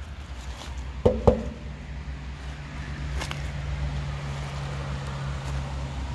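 Two sharp knocks in quick succession about a second in, each with a brief metallic ring, over a steady low hum.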